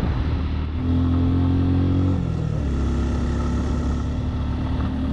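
Suzuki Gixxer SF motorcycle's single-cylinder engine running under way. Its note drops in pitch about two seconds in, then holds steady.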